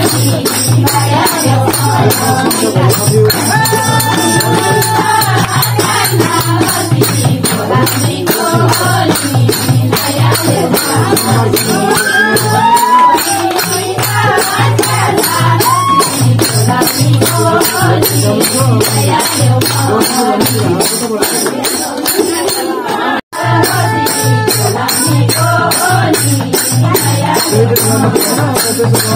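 Devotional bhajan-kirtan music: voices singing over jingling hand percussion and a steady beat. It drops out for an instant about 23 seconds in.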